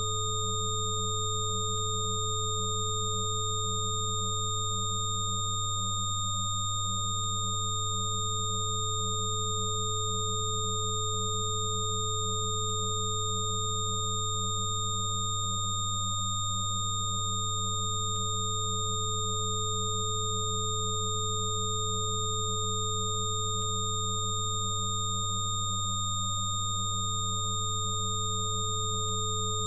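Electronic sine tones held steady and layered: a strong low hum, a slightly fluttering tone above it, and several higher pure tones. One middle tone briefly dips three times, about ten seconds apart.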